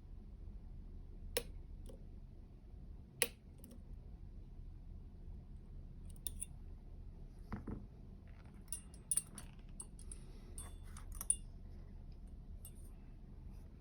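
Small metal clicks and light scraping of lock-picking tools working the pins of a U-Shin Showa NX three-row dimple lock. There are two sharp clicks in the first few seconds, then a cluster of faint ticks and scrapes in the second half, over a low steady hum.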